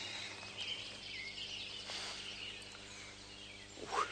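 Quiet outdoor ambience with faint birds chirping. A short, louder sound comes just before the end.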